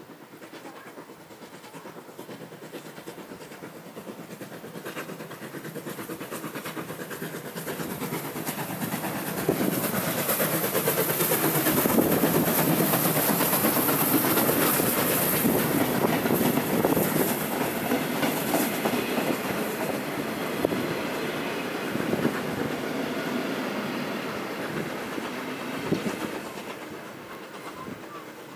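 1907 E2 steam locomotive and its carriages passing close by, growing louder to a peak about halfway through and then fading as the carriages roll away, with repeated clacks of the wheels over the rail joints.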